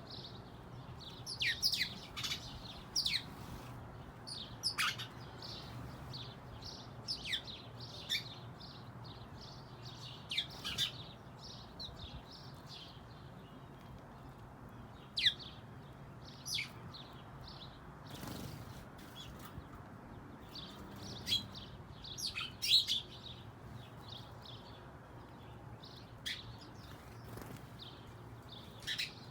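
Small birds chirping: short, high, downward-sweeping chirps come singly and in quick clusters at irregular intervals.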